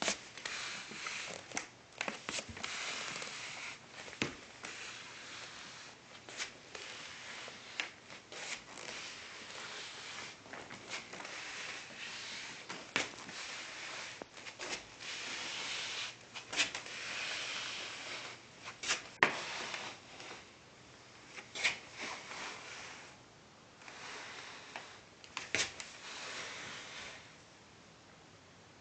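A house slipper scuffing and sliding on a hardwood floor while a dachshund puppy hangs on and chews it. Irregular rubbing with sharp clicks every second or two, quieter near the end.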